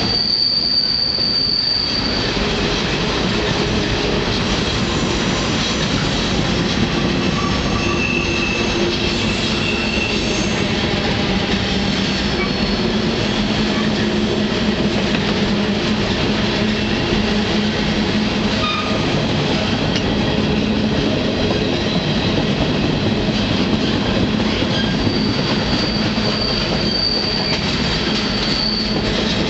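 Freight train running noise heard from aboard a moving freight car: a steady rumble and rattle of the car on the rails, with high-pitched steel wheel squeal at the start and again near the end, typical of flanges grinding through curves.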